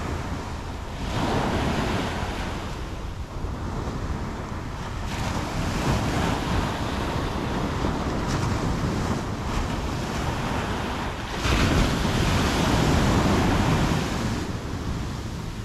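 Ocean surf: waves breaking and washing up a sandy beach, rising and falling in slow surges, the loudest a few seconds before the end.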